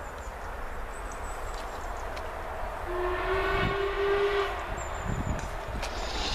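Whistle of an approaching LMS Stanier Black 5 steam locomotive: one steady blast of about a second and a half, a little after three seconds in, over a low outdoor rumble.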